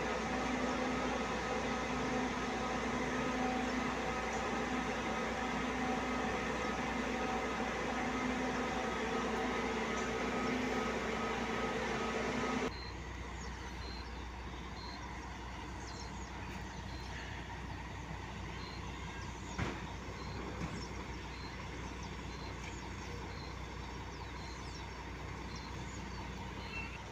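Marcopolo double-decker coach idling at the platform: a steady engine and air-conditioning hum holding a constant tone. About halfway through the sound cuts to a quieter idle, with a faint high beep repeating about once a second and one sharp click.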